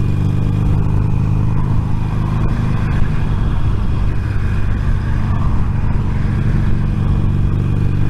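Motorcycle engine drone and wind rush heard inside a crash helmet through a microphone sewn into the helmet's cheek pad, as the bike accelerates at road speed.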